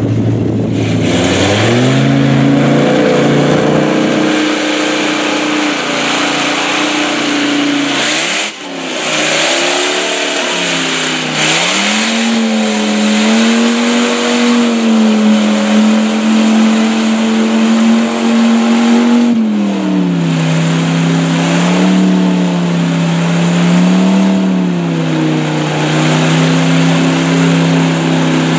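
Dodge Viper V10 engine in a lifted Dodge Ram mud truck running at high revs under load in deep mud. The revs climb over the first couple of seconds, dip briefly about eight seconds in, climb again, drop back a little about twenty seconds in, and rise and fall a few times after that.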